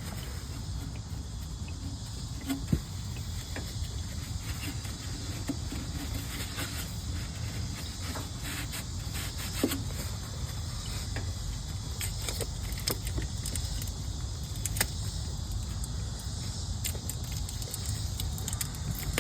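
Steady low rumble under a faint, steady high-pitched buzz, with scattered light clicks and taps.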